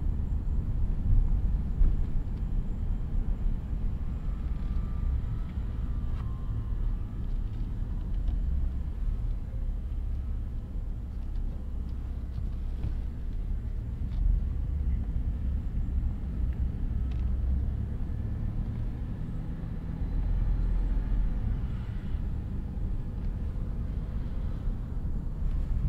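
A car driving, with a steady low rumble of engine and tyre noise.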